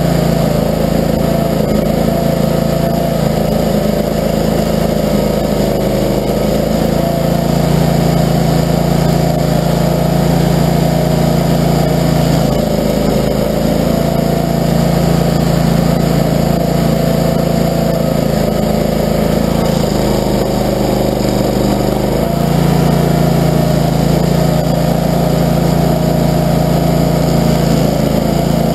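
Barreto tracked stump grinder's gasoline engine running steadily and loudly, its note changing for a few seconds twice.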